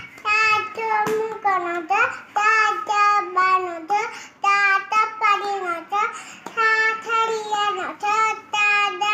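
A young girl singing a song alone, with no accompaniment, in short rhythmic syllables on a few held notes.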